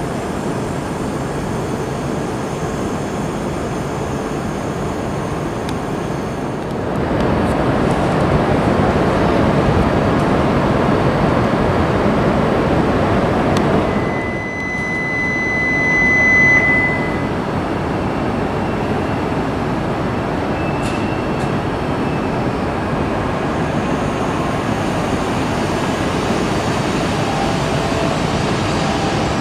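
Steady running noise of E5-series Shinkansen trains at a station platform. It grows louder for several seconds from about a quarter of the way in, and a high steady tone sounds for about three seconds near the middle.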